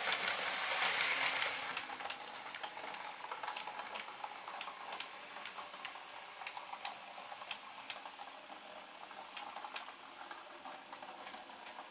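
Model train running along the track with a steady rolling hiss, loudest in the first second or so and then easing, and many sharp clicks from the wheels on the rails.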